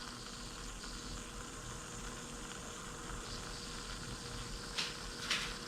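Steady soft hiss of a Kamira stovetop espresso maker brewing on the burner as coffee flows through, with a few faint ticks near the end.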